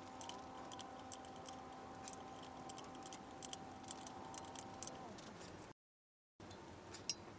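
Faint metallic clicks and light scraping of a combination spanner working a brass taper-thread airline fitting tight into the air inlet of an air-over-hydraulic jack, the spanner taking repeated small bites on the fitting. A faint steady hum sits underneath and stops about five seconds in.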